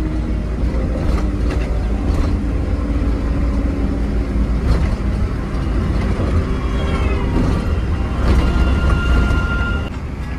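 Truck engine running under way, a strong low rumble with road noise inside the cab. A steady high tone sounds for over a second near the end.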